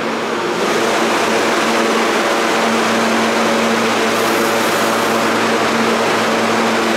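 R160 subway train pulling out of the station into the tunnel: steady wheel and rail noise and traction-motor hum, getting a little louder about half a second in and holding steady, with a constant low hum tone.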